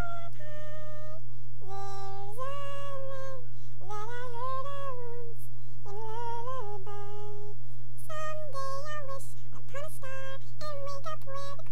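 A woman singing with her voice sped up to a high, chipmunk-like pitch: held notes that slide up and down in short phrases, with no words made out. A steady low hum runs underneath.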